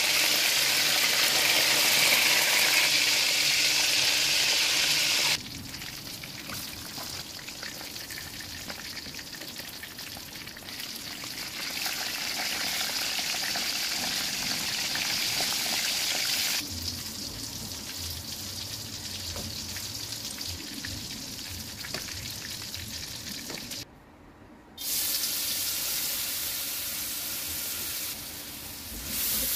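Hot oil sizzling and crackling in a wok as whole fish, then pieces of tofu, then a shredded batter fry. The level jumps up and down abruptly several times, with a brief near-silent gap near the end.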